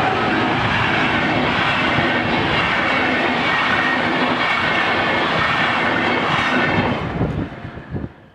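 Passenger train of Intercity coaches hauled by DB class 218 diesel locomotives passing close by: a loud, steady rumble and rattle of wheels on the rails. It dies away quickly about seven seconds in as the last coach goes by.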